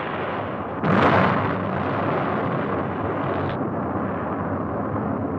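Atlas rocket exploding: a sudden loud blast about a second in, with a steady rumble of burning before and after it.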